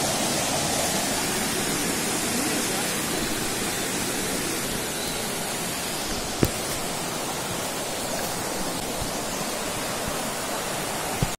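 Shallow river running over rocks in small rapids: a steady rush of flowing water. One brief click about six seconds in.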